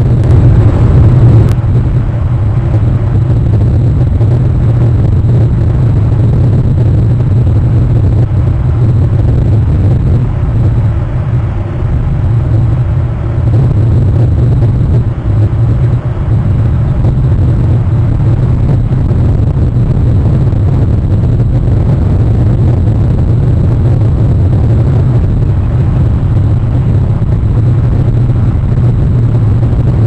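Steady, loud low rumble with no clear breaks.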